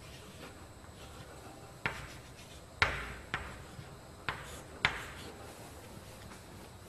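Chalk tapping and scratching on a chalkboard as symbols are written: about five sharp taps, each with a short scrape, between two and five seconds in.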